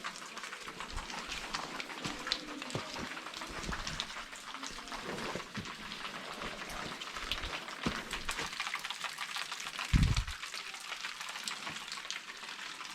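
Water dripping and pattering as a dense run of small drops, like rain, with one low thump about ten seconds in.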